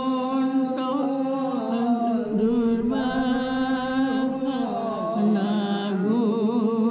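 Voices chanting an Assamese naam-kirtan, a devotional chant sung in long held notes that glide from one pitch to the next.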